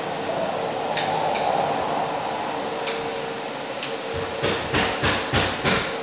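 Caulking gun being worked at a wall box. A few sharp clicks come first; then, from about four seconds in, a run of even clacks about three a second as the trigger is pumped to push out caulk. A steady hum sits underneath.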